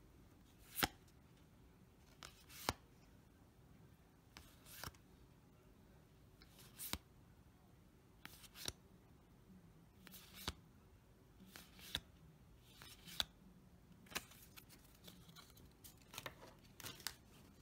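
Yu-Gi-Oh trading cards flipped through by hand one at a time, each card slid off the stack with a short sharp snap at irregular intervals, coming closer together near the end.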